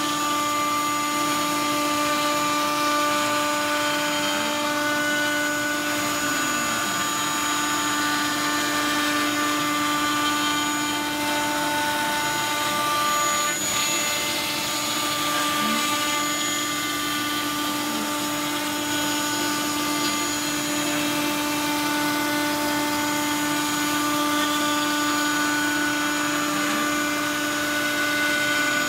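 Router spindle on a kit CNC machine running at a steady high pitch while it routes a wooden sheet, with faint whines rising and falling a few times as the cutting head moves.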